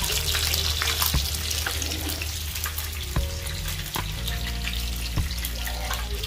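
Hot oil sizzling in a frying pan as a fried changu (emperor fish) is lifted out with a slotted spatula, the sizzle easing off over the few seconds. A few sharp clicks of the spatula against the pan.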